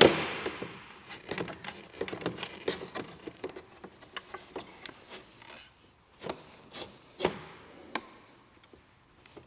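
Nylon collector pipe being fed and twisted through a grommet in the glass panel of a SolarisKit S400 solar collector: a sharp knock at the start, then scattered rubbing and light clicking as the pipe drags through, with a few firmer knocks in the second half.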